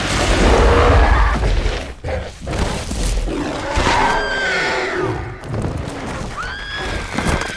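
Film action sound mix: heavy crashing impacts and deep rumbling in the first two seconds, then creature roars and two high arching shrieks from the giant gorilla and dinosaurs, over orchestral score.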